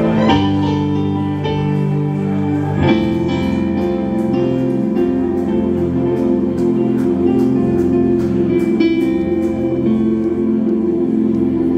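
Live keyboard chords from a Korg stage keyboard played through a PA, held and sustained, with new chords struck about half a second and three seconds in. A light, regular high ticking runs above them.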